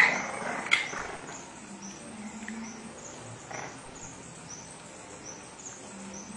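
Puppies squeaking and yelping: two sharp cries right at the start and just under a second in, and a weaker one past the middle, over a fast, steady run of high chirping.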